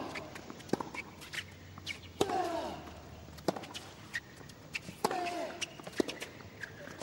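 Tennis rally: a ball struck back and forth by racquets, with a sharp hit about every second and a player grunting on three of the shots.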